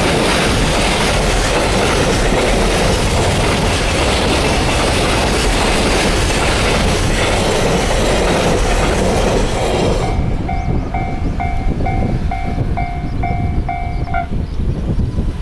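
A train passing close by at a level crossing, a loud steady rushing rumble that cuts off about ten seconds in. The crossing's warning bell then rings out on its own, a steady ding about twice a second, and stops shortly before the end as the crossing clears.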